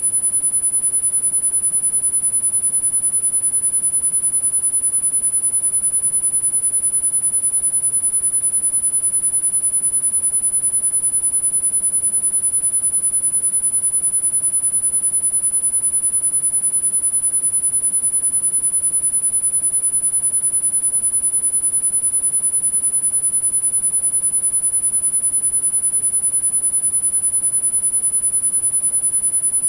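A single very high-pitched pure sine tone held steady without a break, played as a tinnitus-masking frequency.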